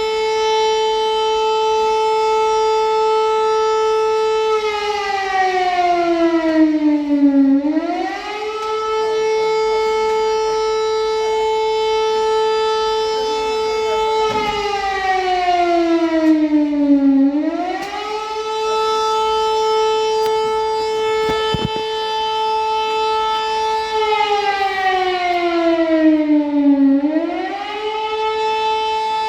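Civil defence siren sounding a missile-danger alert: a held steady wail that sinks in pitch over a few seconds, then climbs quickly back and holds again, repeating about every ten seconds.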